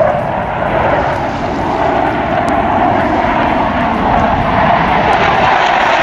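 Loud, steady engine noise from a fixed-wing aircraft in flight.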